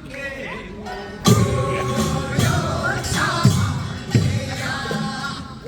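Korean folk work-song performance: group singing in held notes, joined about a second in by loud percussion strokes that repeat roughly once a second.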